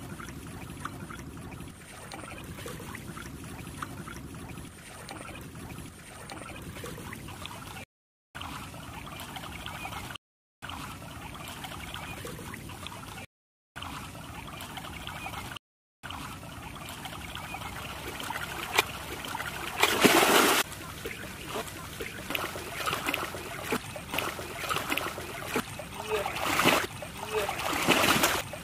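Shallow muddy water trickling in a channel, broken by a few short silent gaps. Past the middle it gives way to irregular splashing as a person wades in and thrashes at fish in the water, with strong splashes about two-thirds of the way in and again near the end.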